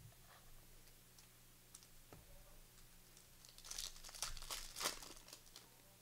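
Plastic wrapper of a Panini Select basketball card pack crinkling as it is torn open and handled, a dense burst of crackling in the second half after a few small clicks.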